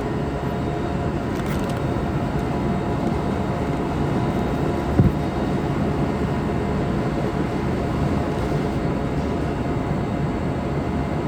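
Steady machine-like hum and noise, with faint steady tones, and a single short knock about five seconds in.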